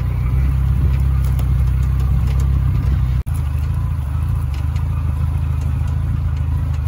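Farm vehicle engine running steadily at low speed, a constant low drone, with a momentary break about three seconds in.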